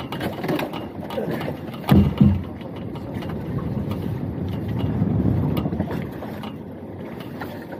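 Handling knocks and thumps aboard a small open boat as a lobster pot is worked, two louder thumps about two seconds in, over steady wind and water noise.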